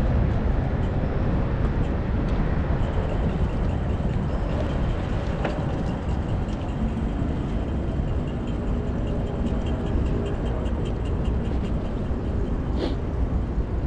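Wind rushing over the microphone of a mountain bike's handlebar camera while riding, with tyre and traffic noise. A light, rapid ticking runs through the middle stretch, like a bicycle freewheel clicking while coasting, and there is one sharp click near the end.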